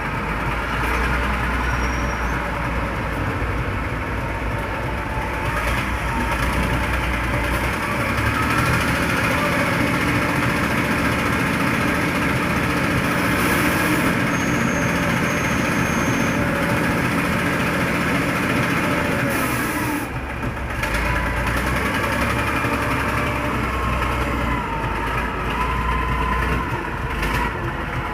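A sand-loading tractor's engine running continuously while it works, loading sand into a truck. Its note shifts as it works, with a short dip about twenty seconds in.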